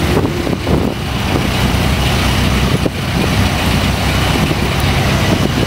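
Jeepney engine and road noise heard from inside the open-sided passenger cabin while riding: a steady low rumble with a few short knocks.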